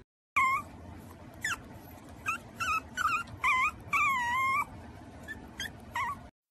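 Yorkshire terrier puppy whimpering: a run of short, high-pitched whines that slide up and down in pitch, the longest a little past the middle, then a few fainter ones near the end.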